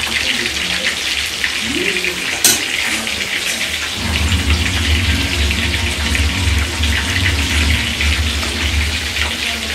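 Chicken kebab pieces frying in hot oil: a steady crackling sizzle. A sharp click comes about two and a half seconds in, and a low hum joins from about four seconds in.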